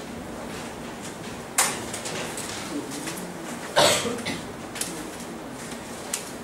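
Two short coughs about two seconds apart, the second louder, over a steady room hum, with a few faint small ticks between them.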